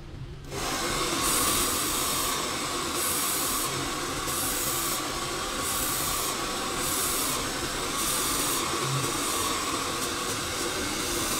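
Handheld hair dryer blowing hot air into hair lifted on a round brush, a steady rushing hiss that starts about half a second in and stops near the end. Its upper hiss brightens and dulls roughly once a second.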